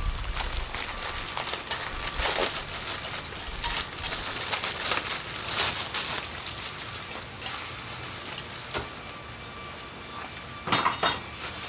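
Loose metal grill parts and their packaging being handled: irregular light clinks and clatters mixed with crinkling and rustling, with a louder rustle near the end.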